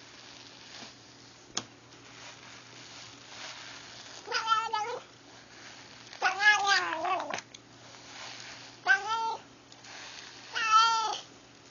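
Domestic cat giving four separate wavering meows, the second one the longest. These are the noises he makes when touched on a sore backside, from pain or distress.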